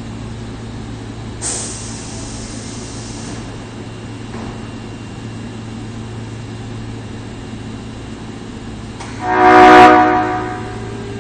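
Air horn of an Osaka Municipal Subway 22 series train sounding once for about a second near the end, loud and with an odd-sounding tone; this set is known for its unusual horn. Earlier, about a second and a half in, a burst of air hisses for about two seconds over the steady hum of the stopped train.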